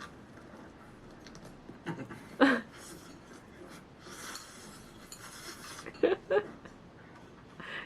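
Quiet eating sounds: soft rustling and utensil or dish noises, with short vocal sounds about two seconds in and again around six seconds.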